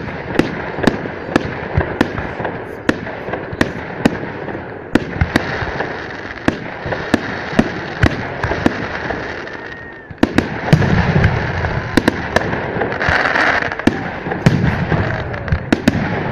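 Festive salute fireworks going off: a rapid, irregular string of sharp bangs and pops, several a second, over continuous crackling. The bursts ease briefly about two thirds of the way through, then come thick again.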